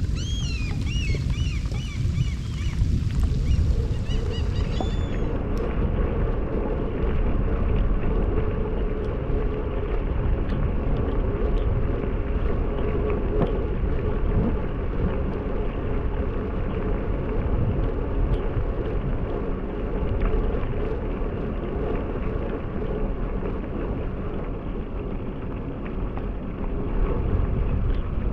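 Strong wind buffeting the microphone in a steady low rumble, with birds chirping during the first few seconds.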